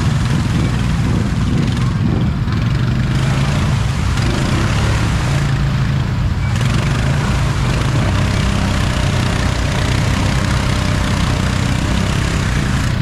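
ATV engine running steadily under a broad, loud hiss.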